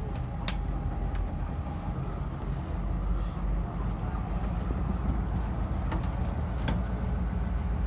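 Steady low rumble of a fishing boat's engine, mixed with wind on the open deck, with a few sharp clicks and knocks as a wire crab pot is handled at the rail.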